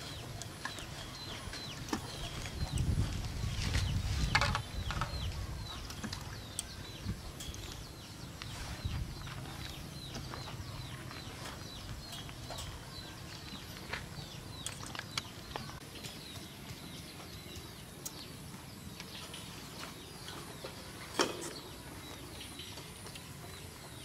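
Outdoor background of birds chirping, many short high chirps over and over, with scattered light clicks and one sharper tick about 21 seconds in from wire and metal fan guards being handled. A low rumble comes a few seconds in.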